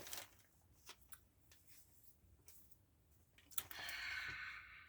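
Faint handling sounds of plastic yarn packaging: a few light clicks in the first second, then a brief rustle of about a second, three and a half seconds in, with near silence between.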